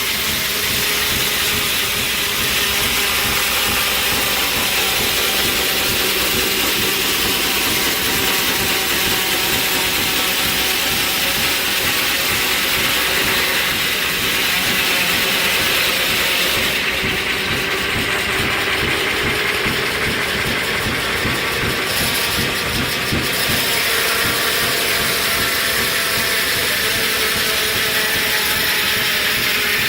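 1870s-era sawmill machinery running: a steady, loud mechanical clatter of gears and drive with a hiss over it. The highest part of the hiss thins for a few seconds past the midpoint.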